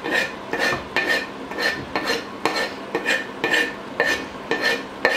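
Wooden chopping board knocked repeatedly against the rim of a stainless steel cooking pot, about two to three knocks a second, each with a short metallic ring, to shake chopped coriander off into the pot.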